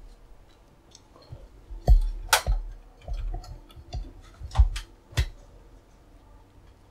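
Foil-wrapped trading card packs and cards being handled at a table: irregular light clicks, taps and soft knocks, the sharpest ones about two and a half and five seconds in.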